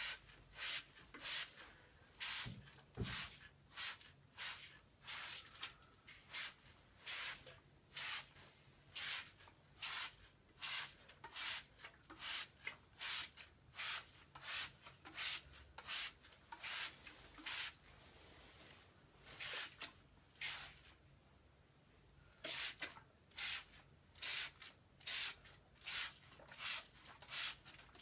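Hand-held trigger spray bottle squirted over and over onto a paper board, a short hiss roughly every half second, with a brief pause about two-thirds of the way through.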